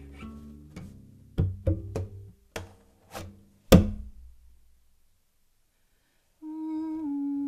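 Unbowed cello played with extended techniques: sparse plucked and percussively struck notes, each ringing briefly, with the loudest strike just before four seconds in. After a short silence a held note begins near the end and steps down slightly.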